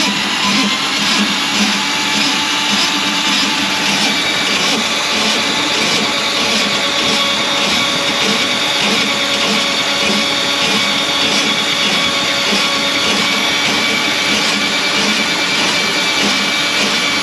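Drain-cleaning machine running steadily on a kitchen drain line clogged with grease, a loud motor noise with a faint pulse about twice a second.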